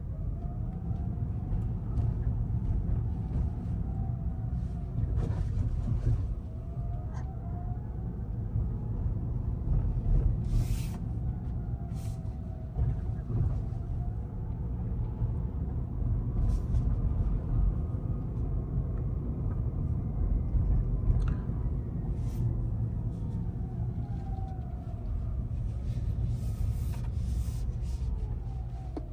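Cabin of a Rivian R1T electric pickup on the move: steady low road rumble, with faint whines that rise and fall in pitch over a few seconds each, and a few short knocks.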